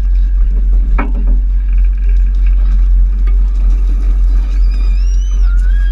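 Steady low rumble with a hiss of water spraying from hand-pumped tube water cannons, a sharp knock about a second in, and a child's high shout near the end.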